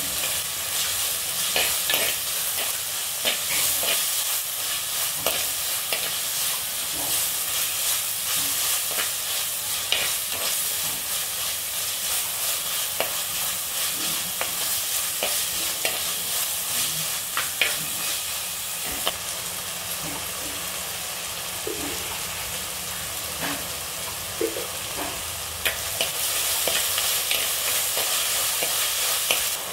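Sliced onions, tomatoes, curry leaves and green chillies sizzling in oil in a heavy black pot, while a metal spatula stirs them with frequent scrapes and taps against the pot. The sizzle grows slightly louder near the end.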